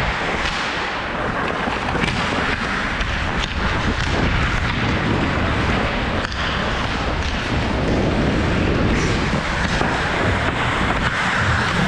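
Wind rushing over the microphone of a hockey player's head-mounted camera while skating hard, with skate blades scraping the ice and a few sharp knocks.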